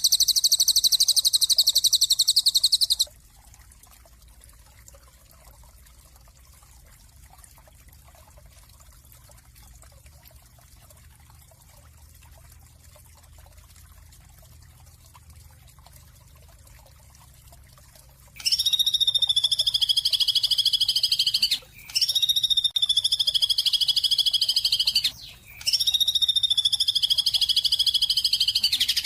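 Loud, rapidly pulsed buzzy animal trills. A high trill cuts off about three seconds in, followed by a long stretch of faint background. Then come three long trills of about three seconds each, each falling slightly in pitch, with short breaks between them.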